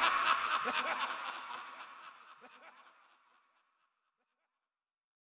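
Villainous laughter, several voices laughing together, fading out over about three seconds.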